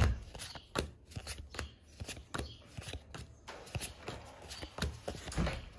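Pokémon trading cards being thumbed off a deck one at a time in the hand: a run of irregular soft flicks and card-on-card slides, with a louder knock right at the start.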